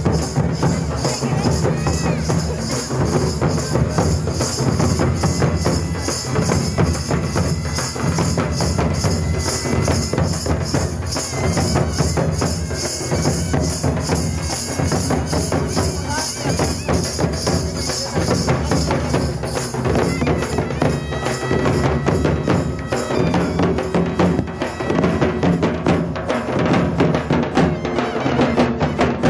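Live folk procession music: two-headed hand drums beaten in a fast, steady rhythm under continuous jingling metal percussion.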